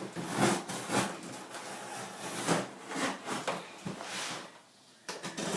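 Utility knife cutting packing tape on a cardboard shipping box, with cardboard scraping and rustling in uneven strokes. The sound stops briefly near the end, then starts again.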